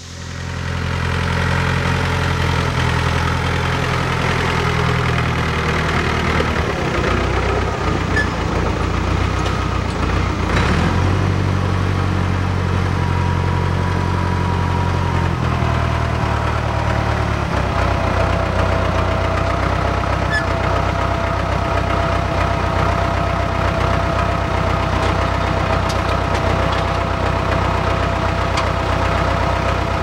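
Farm tractor engine starting up and running steadily, its engine speed shifting a few times as the tractor is driven and its front forks move a load.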